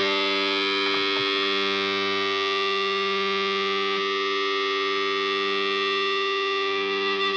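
A held, distorted electric guitar chord ringing out under effects as a steady drone with many overtones, with no drums or rhythm, at the close of a black metal track.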